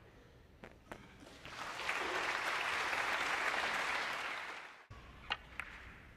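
Snooker audience applauding for about three seconds, swelling about a second and a half in and cutting off suddenly. Near the end come two sharp clicks of snooker balls being struck.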